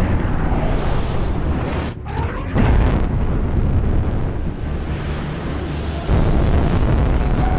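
A jet engine runs loudly in a film sound mix. It is a dense, deep rumble with hiss above it. It starts abruptly and gets louder about two and a half seconds in and again about six seconds in.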